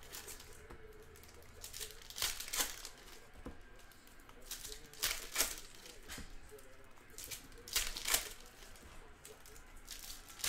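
Trading card pack wrappers being torn open and crinkled, in three main bursts about two and a half seconds apart with smaller crackles between.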